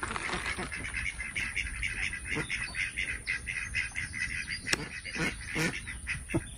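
A group of birds calling over and over in a rapid, quack-like chatter, with a few louder, lower calls near the end.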